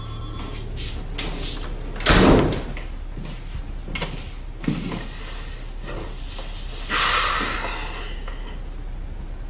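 A door shutting with a heavy thud about two seconds in, followed by a few lighter knocks and a brief rush of noise about seven seconds in.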